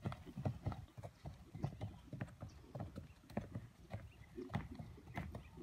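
Hoofbeats of a ridden grey horse in a collected trot on a soft dirt arena: dull thuds in a steady rhythm, a few to the second.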